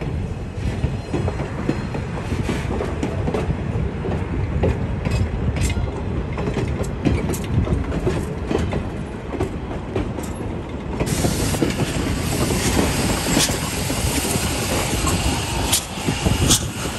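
Passenger cars of a steam train rolling past close by, wheels rumbling and clicking over rail joints with a little flange squeal. From about eleven seconds in, a steady hiss of steam joins as Clover Valley Lumber Co. #4 steam locomotive draws level.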